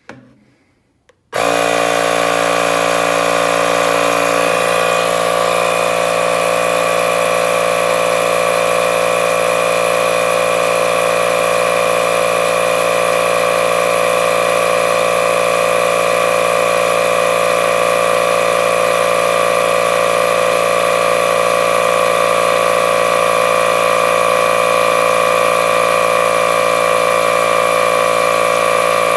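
Milwaukee M12 12-volt compact inflator switching on about a second in and then running steadily, its small motor-driven compressor pumping air into an empty tractor tire with the pressure set to 12 PSI.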